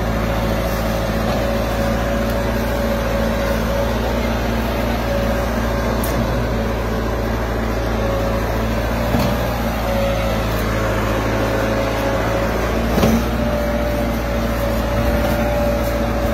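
Massey Ferguson 385 tractor's four-cylinder diesel engine running steadily under heavy load, hauling a trolley piled high with sugarcane, with a steady whine above the engine note. A few short knocks, the loudest about 13 seconds in.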